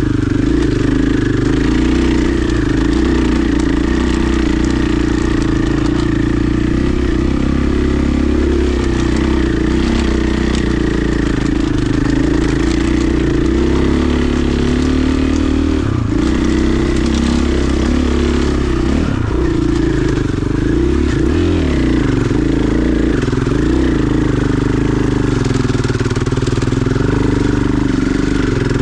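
KTM 500 EXC dirt bike's single-cylinder four-stroke engine running steadily as the bike rides along a dirt trail. The engine note dips and shifts briefly a few times past the middle.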